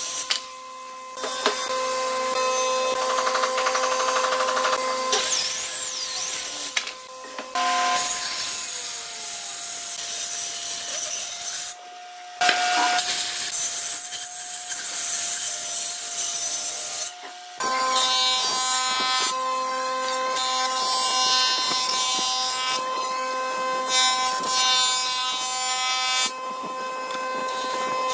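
Woodworking power tools cutting rough planks in a series of short takes: a handheld circular saw whining and cutting through a board, then a jointer running steadily as boards are fed across its cutterhead. The pitch of the motor whine changes in the middle stretch, and the sound breaks off abruptly several times.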